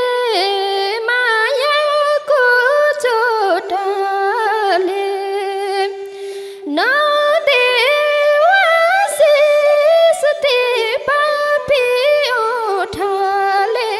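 A woman singing a slow, ornamented Nepali folk (lok dohori) melody in long, held phrases, with no drums. She breaks off briefly about six seconds in, then starts a new phrase.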